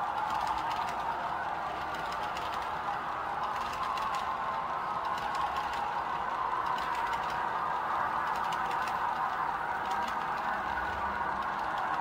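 HO scale model freight train running on the track: a steady hum with a quick run of light clicks and rattles from the cars' wheels rolling over the rails.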